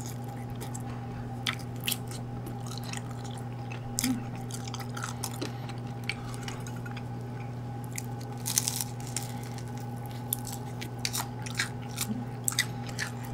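Close-up chewing and biting into crispy seasoned fried chicken, with irregular crisp crunches of the coating, heaviest about two-thirds of the way in, over a steady low hum.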